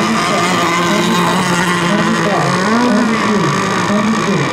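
Several racing RC boat engines running at once. Their pitches rise and fall against each other as the boats circle on the water.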